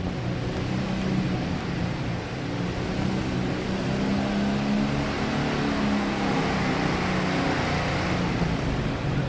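Allis-Chalmers super stock pulling tractor's diesel engine running at low speed, a steady, deep, even note.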